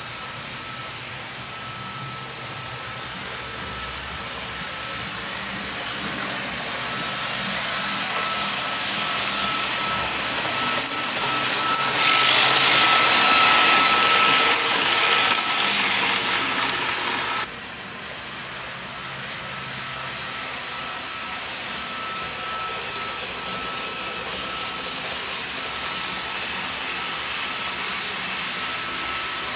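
Märklin HO-scale ICE 4 model train running past: a steady rolling hiss with a faint high steady tone, growing louder as the train comes close and is loudest as it passes. It drops suddenly about seventeen seconds in, and a quieter steady running sound continues.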